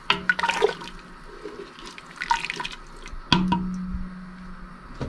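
Wooden spoon stirring chickpeas in hot water in a pressure cooker pot: liquid sloshing and splashing, with knocks and scrapes of the spoon against the pot, in several short bursts.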